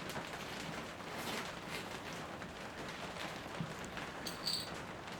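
Steady rain falling, an even patter with scattered drip clicks. A brief high-pitched squeak sounds about four seconds in.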